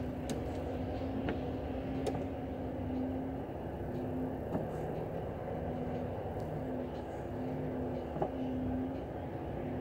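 Steady low rumble of a Volvo truck's engine heard from inside the cab as it crawls in stop-and-go traffic, with a humming tone that comes and goes and a few faint ticks.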